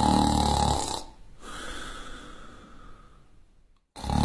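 A person snoring loudly. A heavy, buzzing snore on the in-breath ends about a second in and is followed by a softer, breathy out-breath. After a brief silence a second loud snore begins near the end.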